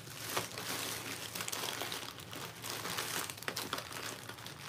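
Plastic chocolate-bar wrappers crinkling irregularly as hands rummage through a pile of candy bars.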